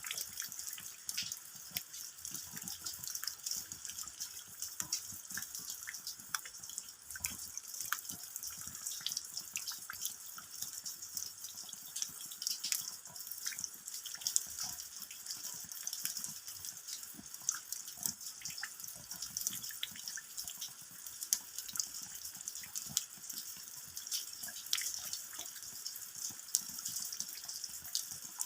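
Steady rain with many separate drops pattering and dripping irregularly.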